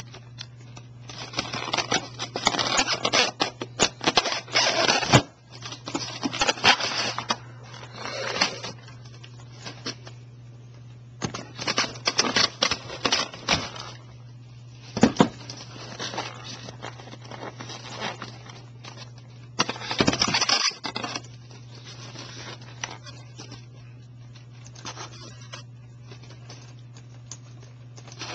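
Airsoft Thompson M1A1 electric gun firing BBs in several rapid full-auto bursts of sharp clicks, separated by pauses, with the bursts dying out in the last third.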